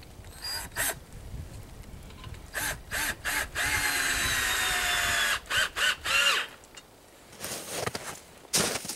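Power drill with a nut-driver bit driving a lag bolt into the tree: several short trigger bursts, then a run of nearly two seconds with the pitch sagging as it loads, then a few more short bursts.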